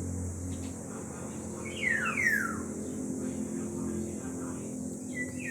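Black-naped oriole giving two slurred downward whistled calls in quick succession about two seconds in, with a short note near the end, over a steady low hum.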